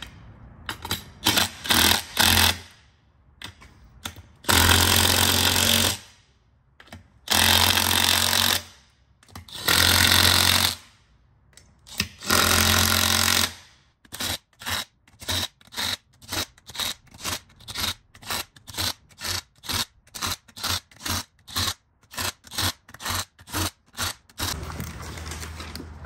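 Small zip gun running in the bolts of a beadlock ring. First come several runs of about a second and a half each, then a long series of short trigger bursts, about two a second, as the bolts are snugged without going over the torque spec.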